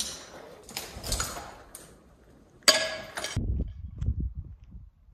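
Rustling and scraping noises, then a sudden loud clattering crash with a brief ring about two and a half seconds in, followed by low rumbling on the microphone.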